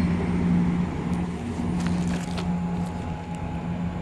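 Class 168 Clubman diesel multiple unit departing, its underfloor diesel engines giving a steady low drone, with a few faint clicks about a second or two in.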